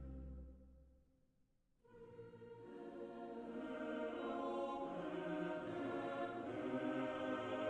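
Background music of sustained, slow tones. It fades almost to nothing about a second in, then a new phrase begins about two seconds in and swells louder.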